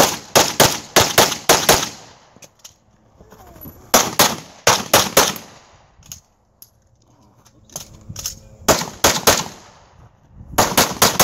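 Semi-automatic pistol fired rapidly in four quick strings of shots, with pauses of a second or two between them.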